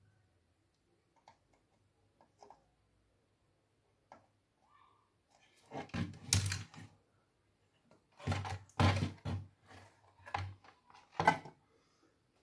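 Nearly quiet at first, with a few faint clicks, then from about halfway through a run of louder knocks, clicks and rustling as tools and a motherboard are handled during capacitor replacement.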